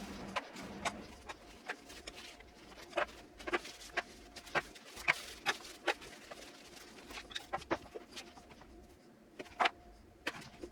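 A run of irregular, sharp clicks and knocks, most dense in the first two thirds, over a faint steady hum.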